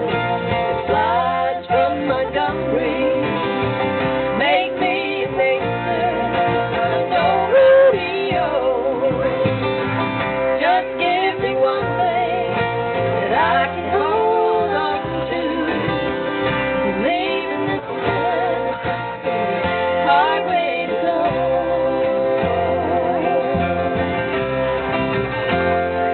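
Live acoustic country-folk music: acoustic guitar and bass playing with a voice singing a wavering melody over them.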